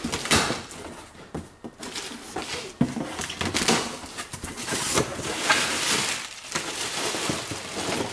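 Cardboard shipping box being opened by hand: packing tape pulled and torn and cardboard flaps rustling and scraping, with many irregular crackles and clicks.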